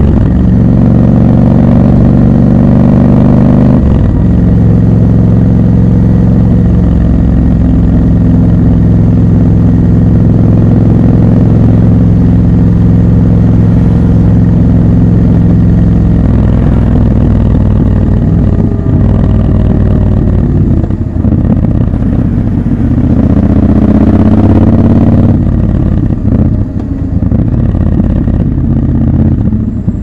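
Triumph Scrambler 1200 XC's 1200 cc parallel-twin engine running at a steady cruise, its note stepping down about four seconds in and holding. It eases off, rises briefly a little over twenty seconds in, then runs lower and more unevenly as the bike slows in traffic near the end.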